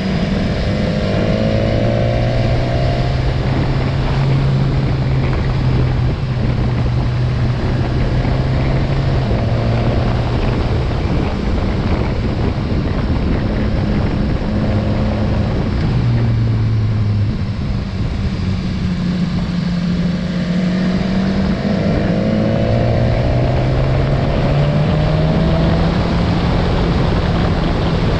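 BMW motorcycle engine running under way, its pitch climbing and dropping with the throttle, with rising whines near the start and again about three-quarters through. Steady wind rush over the microphone throughout.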